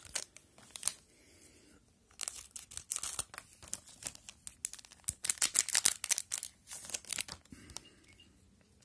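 A 2021/22 Upper Deck Series Two hockey card pack wrapper being crinkled and torn open by hand, in several bursts of rustling and tearing that fade out near the end.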